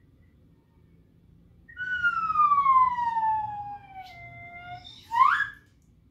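Slide whistle playing one long note that glides slowly downward for about three seconds, then a quick upward swoop about five seconds in.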